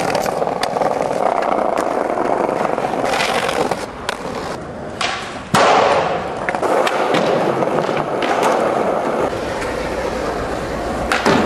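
Skateboard wheels rolling over paving and concrete, a steady grinding roll broken by sharp clacks and knocks of the board, the loudest about five and a half seconds in.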